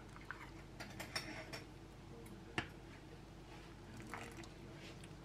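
Metal ladle clinking and tapping against a steel soup pot and a ceramic bowl while soup is dished out: a few scattered light clicks and knocks, the sharpest about two and a half seconds in, over a faint steady hum.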